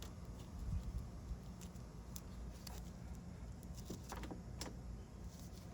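A few faint clicks and light rattles of the Mercedes-Benz 190E's door handle parts being worked by hand, several of them bunched about four seconds in, over a low steady hum.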